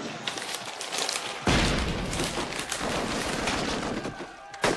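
Battlefield gunfire: a dense fusillade of rifle shots that gets suddenly louder about a second and a half in.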